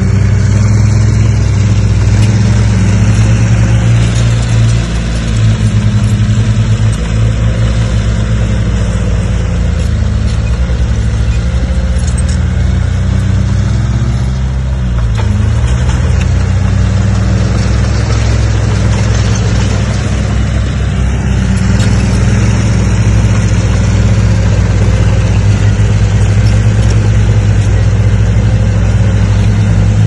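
Crawler bulldozer's diesel engine running steadily at working revs while pushing dirt, its pitch dipping briefly about halfway through.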